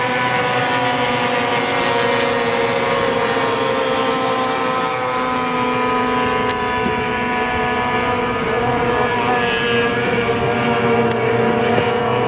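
Several small outboard racing hydroplanes running flat out together, their high engine notes overlapping and holding steady with slight rises and falls in pitch.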